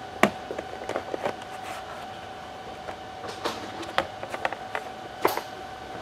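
Sharp plastic clicks and knocks as the hard drive compartment of a Panasonic Toughbook CF-51 is unlatched and the drive caddy is pulled out of the laptop. The loudest click comes just after the start, with more scattered through the middle and latter part, over a steady background hum.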